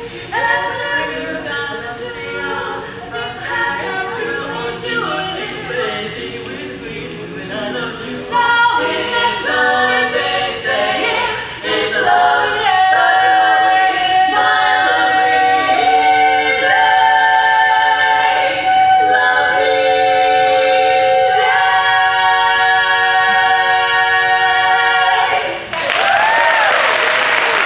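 Women's barbershop quartet singing a cappella in four-part close harmony. One voice holds a long high note over the moving parts, building to a loud sustained final chord. The chord cuts off near the end and audience applause breaks out.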